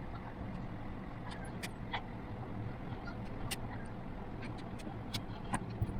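Full-metal fidget spinner spinning on its bearing during a spin-down test, a steady low whir with scattered sharp clicks over it.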